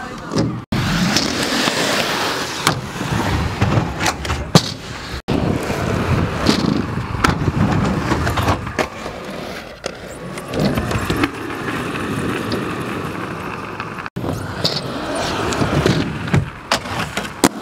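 Skate wheels rolling loudly over concrete ramps, with sharp knocks and scraping from landings and grinds on ledges. The sound cuts off abruptly three times where one clip ends and the next begins.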